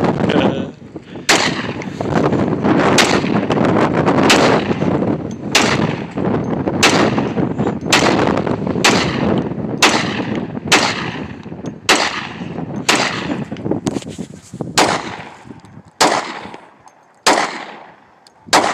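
Gunshots fired one after another at a steady pace of about one a second, roughly seventeen in all, each shot trailing off in an echo.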